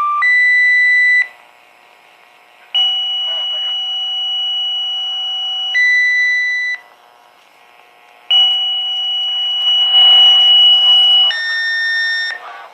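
Fire department pager sounding two-tone dispatch paging tones: a series of steady, pure tones, each short tone of about a second followed by a longer one of about three seconds, in sets at different pitches with brief gaps between.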